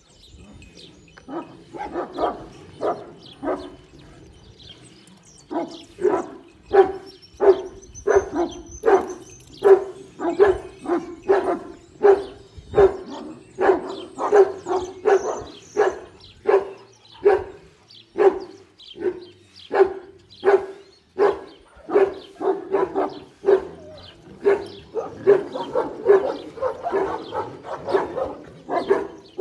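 Kangal (Anatolian shepherd) dog barking over and over in a steady rhythm, nearly two barks a second, after a short pause a few seconds in.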